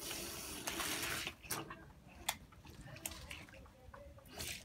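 Water from a garden hose spraying and splashing on concrete as a golden retriever bites at the stream. The steady hiss lasts about a second, then drops to quieter splashing with a few sharp clicks, and flares up again near the end.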